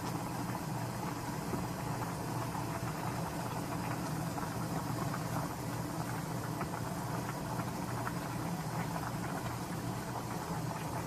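A pot of braised pollack stew boiling on a gas stove: a steady hum with a fine crackle of bubbles over it.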